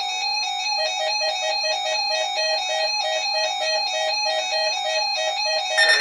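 Electronic tones: a steady tone, with a quick series of short beeps, about three a second, starting about a second in, and higher stepping tones over them, like an electronic chime melody.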